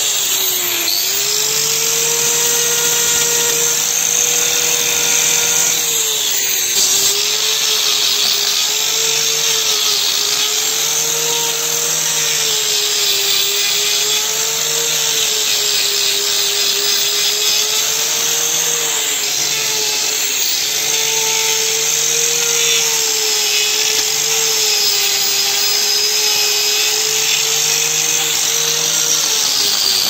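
Electric angle grinder running against a cow's hoof, grinding down the horn of the sole. Its motor tone wavers as the disc is pressed in and eased off, sagging briefly about a second in and again near seven seconds as it takes the load.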